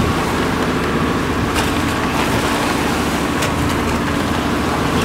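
Engine of a motorized outrigger boat (bangka) running steadily under way, with water rushing and splashing along the hull and bamboo outrigger floats.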